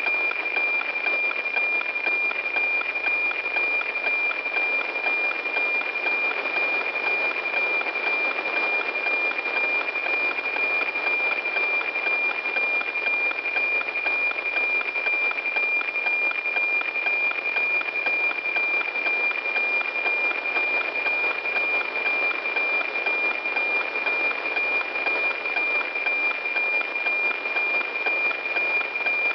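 NOAA-19 weather satellite APT image signal received by radio: a steady high tone over a dense hiss, unchanging throughout.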